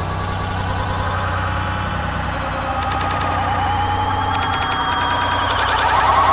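Roadside crowd cheering as bike racers sprint for the finish line, a dense wavering din that grows louder toward the end, with a rapid rattling clatter joining in about four seconds in.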